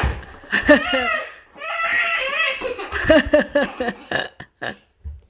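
A young girl shrieking with excitement and people laughing loudly, the laughs rising and falling in quick bursts. A few short sharp clicks come near the end.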